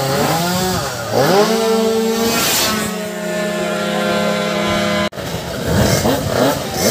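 A small racing scooter engine revving. Its pitch sweeps up twice, then holds steady at high revs for about three seconds before cutting off suddenly about five seconds in.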